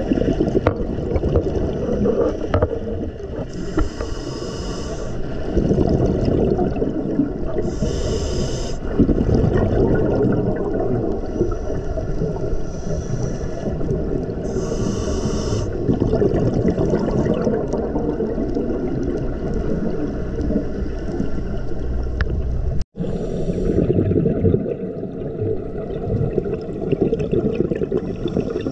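Muffled underwater rumble heard through a camera's waterproof housing, with a scuba regulator's exhaled bubbles hissing out in three short bursts in the first half. The sound drops out for an instant about 23 seconds in.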